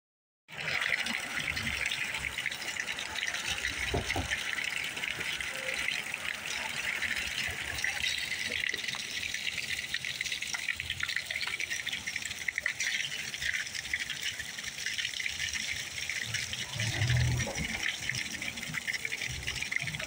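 Steady stream of water gushing from a wall pipe and splashing onto a wet sidewalk, a continuous even splashing hiss.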